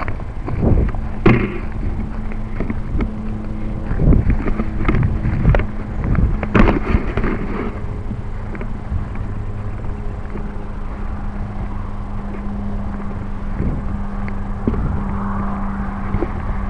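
Handling noise from a camera being carried and jostled: rubbing and knocks, most frequent in the first seven seconds or so. A steady low hum runs underneath.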